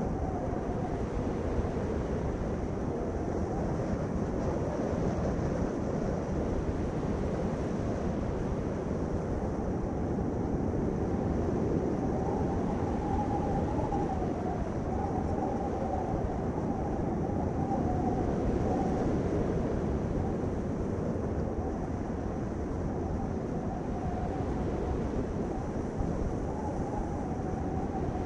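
Steady road and engine noise of a vehicle driving, with a faint whine that wavers slightly in pitch.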